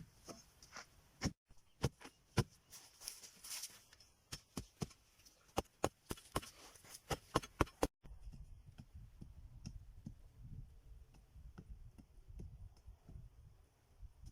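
A quick, irregular run of sharp knocks and clicks, several a second, for about eight seconds. Then, after an abrupt cut, a low rumble with a few faint ticks.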